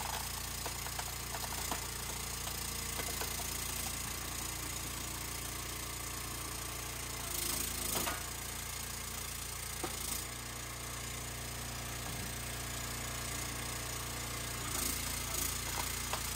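An engine running steadily, with a few brief knocks and clatters over it; its note shifts slightly about ten seconds in.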